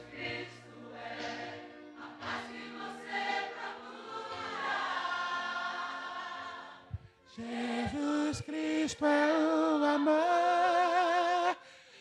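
Gospel song with a choir singing over a backing track. After a brief dip about seven seconds in, a voice holds long notes with vibrato, louder than before.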